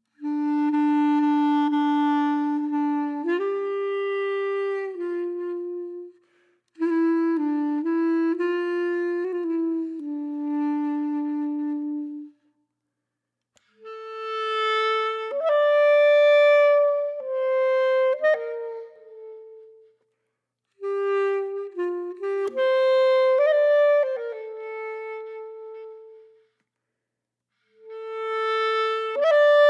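Background music: a slow solo woodwind melody of held notes, clarinet-like in tone, played in phrases of a few seconds with short silent breaks between them.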